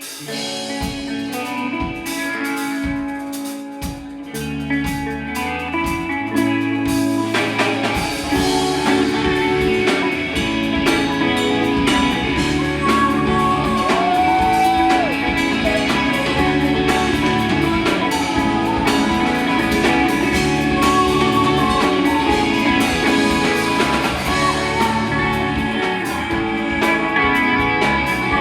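Live rock band playing: a guitar-led opening with low drum thumps, bass notes coming in about four seconds in, and the full band with electric guitars and drum kit swelling louder about seven seconds in and carrying on steadily.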